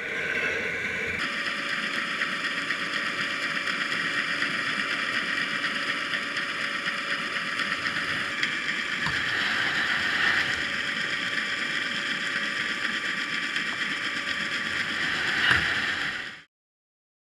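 Steady mechanical drone with hiss and several fixed tones, which cuts off suddenly near the end.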